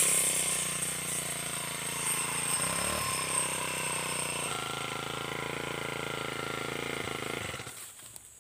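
Four-stroke backpack brush cutter engine running with its circular saw blade spinning clear of the grass, its speed sagging and picking up again a couple of times before the engine stops near the end.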